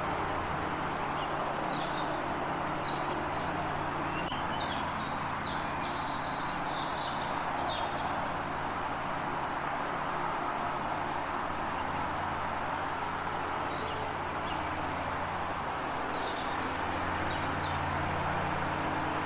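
Small birds chirping in short, scattered high calls over a steady background rumble with a low hum, like distant traffic or an engine.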